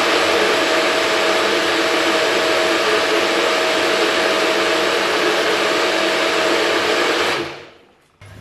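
Bullet-style personal blender (Magic Bullet motor base with a NutriBullet cup) running steadily, blending fruit and water into a smoothie, with a steady motor whine. It spins down and stops about seven and a half seconds in, when the cup is released.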